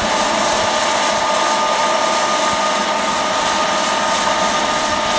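Tractor and Accord pneumatic seed drill running steadily at work: a constant machine noise with a steady whine, typical of the drill's seed-blower fan.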